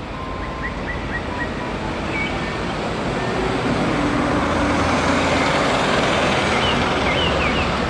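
Single-decker city bus driving past on a road. Its engine and tyre noise grows steadily louder as it comes close and is loudest in the second half. Birds chirp faintly early on and again near the end.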